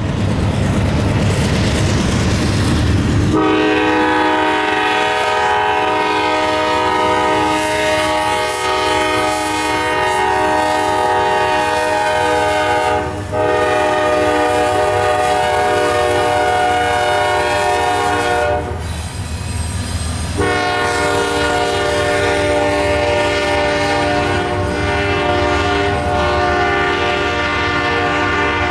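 Norfolk Southern locomotive's multi-chime air horn sounding long blasts over the rumble of the passing train: it starts about three seconds in, breaks briefly about halfway, stops for about two seconds, then sounds again to the end.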